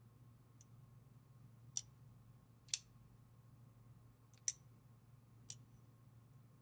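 Benchmade folding knife's crossbar (AXIS-type) lock and blade clicking as the blade is swung open and shut by hand: several sharp, separate metallic clicks, the loudest a little under halfway and about two-thirds through.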